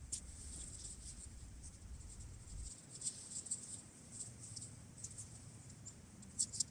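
Faint, irregular rustling and crinkling of a nylon tent bag being handled, with a few sharper crackles near the end. A low rumble underneath stops a little under halfway through.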